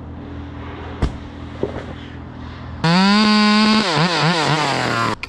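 Arborist's chainsaw idling, then opened up to full throttle about three seconds in, the engine speed wavering in quick pulses before it drops back to idle near the end.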